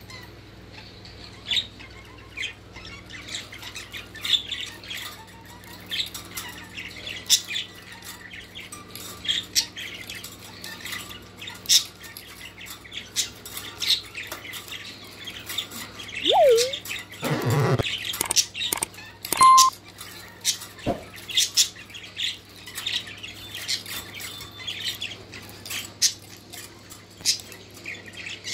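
Kakariki, a yellow red-fronted parakeet, giving many short, sharp squawks and chirps at irregular intervals. A longer rustling noise comes a little past the middle.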